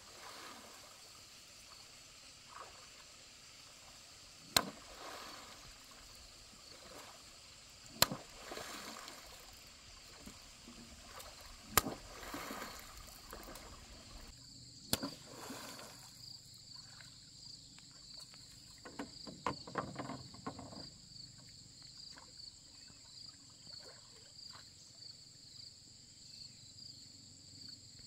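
Sharp slaps on the lake surface, four of them about three and a half seconds apart, each followed by a brief splash, with softer splashing of a bamboo rowing boat in between. A steady, pulsing high insect buzz runs underneath.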